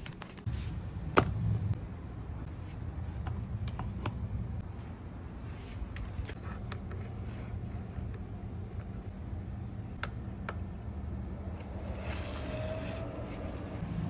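Small fan motor of a mini portable air conditioner running with a steady low hum. A sharp click comes about a second in, lighter clicks and taps follow now and then, and a brief rustle comes near the end.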